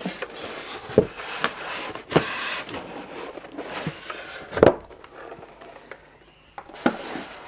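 A sewing machine being lifted out of its box: packaging rustling and scraping, with four knocks as the machine is handled, the loudest a little past halfway.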